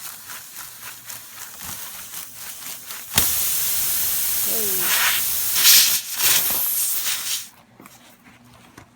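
Pressurised air hissing loudly out of a tire's reamed-open puncture, starting abruptly about three seconds in and cutting off suddenly about four seconds later.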